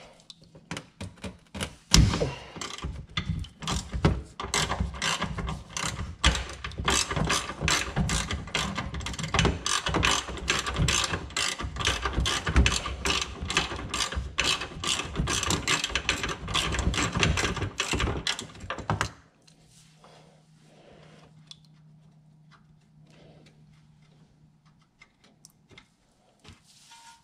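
Hand ratchet clicking rapidly as it runs out a bolt on the rear subframe mount bracket. The clicking stops about 19 seconds in, leaving only faint handling sounds.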